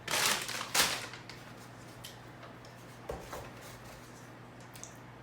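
Handling noise: two short rustling bursts in the first second, then a couple of faint clicks and knocks about three seconds in.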